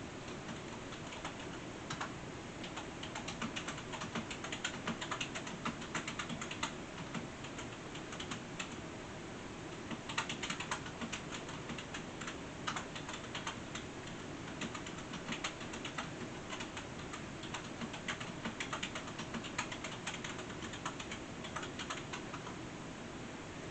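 Typing on a computer keyboard: quick light key clicks in irregular runs of a few seconds, with short pauses between them, over a steady background hiss.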